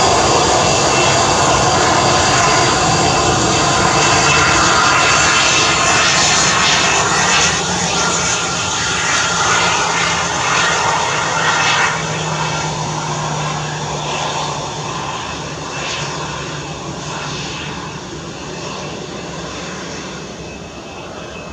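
Airbus A320-214's CFM56 turbofan engines running as the airliner rolls along the runway: a steady jet whine that fades gradually after about halfway as the aircraft moves away.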